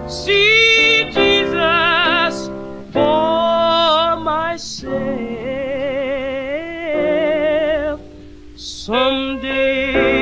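Gospel song: a solo voice sings long, wavering notes with vibrato over a steady backing accompaniment. It breaks off briefly about eight seconds in, then comes back in.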